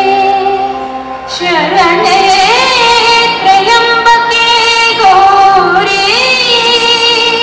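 Song played for a stage dance: a held note, then from about a second and a half in a woman's voice sings wavering, ornamented lines over instruments. The loudness dips briefly about a second in.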